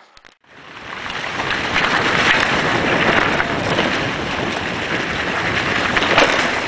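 Wind rushing over the microphone of a mountain bike's camera, mixed with the rumble of the bike rolling fast downhill over a trail covered in dry leaves. It rises within the first second and holds steady, with a brief louder knock near the end.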